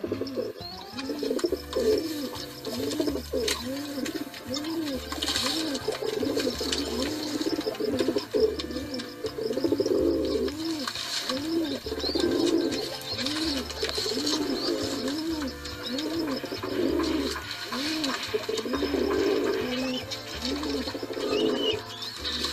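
Pigeons cooing: a continuous run of low, rising-and-falling coos, a little over one a second, sometimes overlapping as more than one bird calls.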